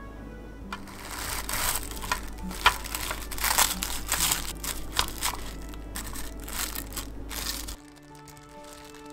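Plastic cling wrap crinkling as it is pressed and smoothed into an empty Spam can, a dense run of sharp crackles that starts about a second in and stops abruptly near the end.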